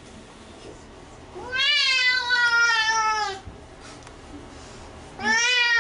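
Wet tabby cat, wrapped in a towel after a bath, meowing: one long, drawn-out meow about a second and a half in, and another starting near the end.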